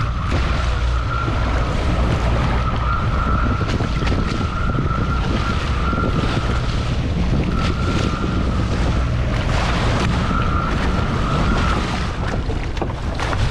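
Tohatsu outboard motor running under way, with a whine that fades in and out, under heavy wind buffeting on the microphone.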